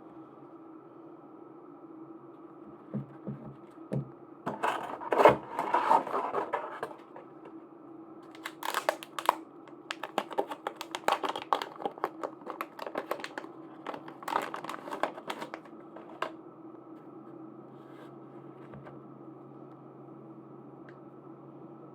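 Plastic packaging being handled and crinkled, with light clicks and taps coming in bursts: a dense rustle a few seconds in, then a run of quick crinkles and clicks that stops near the three-quarter mark. A faint steady hum lies underneath.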